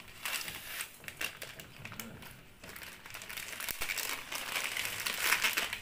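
Plastic instant-porridge packets crinkling as they are handled and emptied, with dry rice flakes shaken out into a stainless steel bowl: a run of irregular sharp crackles.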